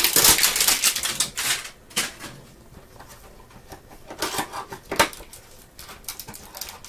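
Panini Flux trading-card hanger box and packaging being handled and opened by hand: crinkling and rustling for about the first two seconds, then quieter, with scattered light clicks and taps, one sharper click about five seconds in.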